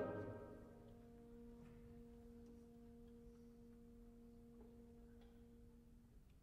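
Orchestra playing very softly: a short accented attack right at the start, then faint held notes that sustain quietly, the higher one stopping a little past halfway and the lower one near the end.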